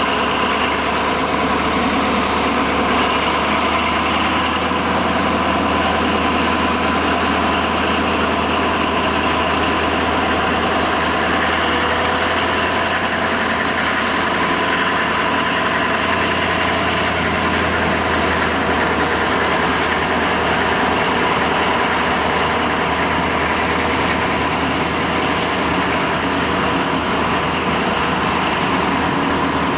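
Diesel engine of an OSE A.351-class Alsthom locomotive running steadily at low power, a deep hum with steady mid-range tones. A thin high whine slowly rises and then eases back.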